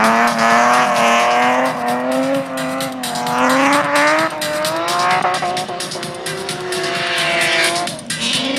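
BMW drift car's engine held at high revs through a long slide, its pitch wavering up and down with the throttle, over tyres squealing; the revs drop briefly near the end and climb again.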